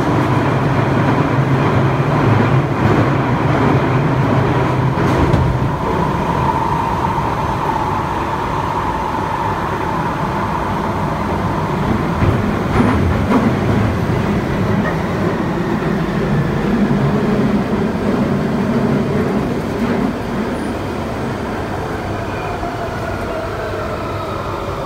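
Central line 1992-stock Underground train running through a deep-level tunnel, heard from inside the carriage: a loud, steady rumble and rattle with a whine riding on it. Over the last few seconds the whine falls in pitch as the train slows for the next station.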